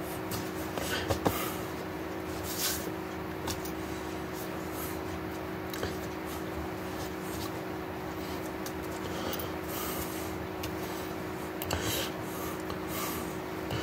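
Room tone with a steady low hum and hiss, broken by a few brief soft rubs and taps of hands brushing together and against a sweatshirt; the sharpest tap comes about a second in.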